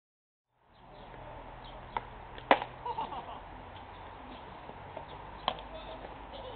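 After a second of silence, open-air ballfield ambience comes in, with three sharp pops of a baseball smacking into a catcher's mitt during warm-up pitches, the middle one loudest. Faint bird chirps sound between them.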